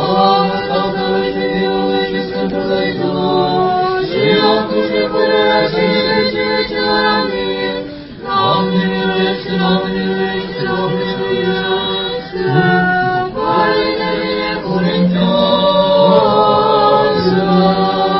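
Choir singing an Eastern Orthodox liturgical response a cappella, in sustained chanted chords with brief pauses between phrases.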